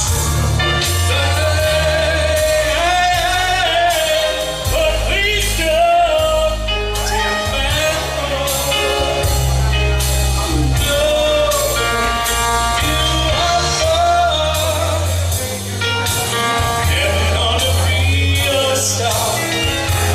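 Song with a singing voice over a band or backing track, a steady drum beat and heavy bass.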